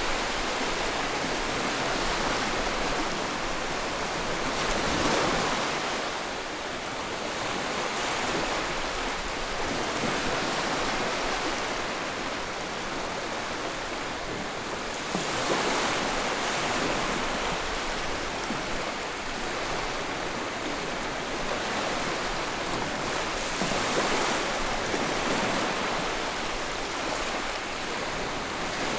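Sea waves breaking on the shore, a steady wash of surf that swells and falls back every several seconds.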